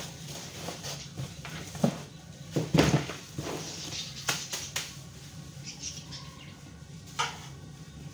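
Cardboard box flaps and plastic bags rustling and knocking as a gloved hand rummages in a box, with the sharpest knocks about two to three seconds in and another near the end, over a steady low hum.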